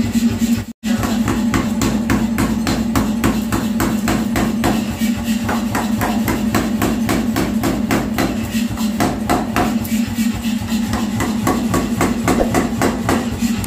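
Pneumatic forging air hammer striking hot steel in rapid, evenly repeated blows, several a second, over the steady hum of the machine. The sound drops out for an instant just under a second in.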